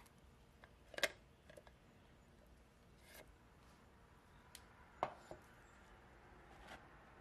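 Quiet kitchen handling as thick blended tomato sauce is poured from a plastic jar into a glass bowl: a few sharp clicks and knocks, the loudest about a second in and again about five seconds in.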